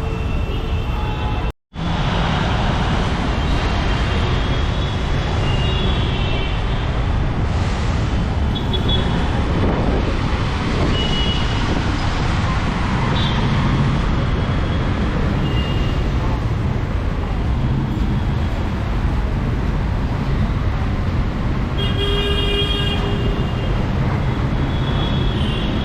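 Rain and city traffic noise, steady and even, with vehicle horns tooting briefly several times, most plainly about twenty-two seconds in. The sound cuts out for a moment about a second and a half in.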